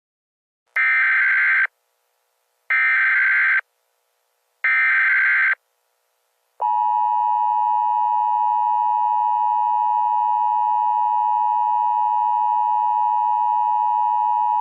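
Emergency Alert System header: three short bursts of screechy digital data, then the steady two-tone attention signal held for about eight seconds and cut off sharply. It marks the start of a new emergency alert.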